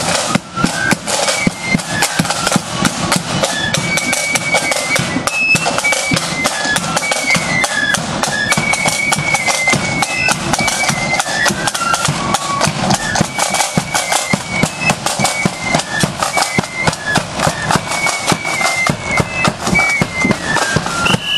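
Marching flute band playing: high flutes carry a stepping melody over rapid side-drum beating and bass drum strokes.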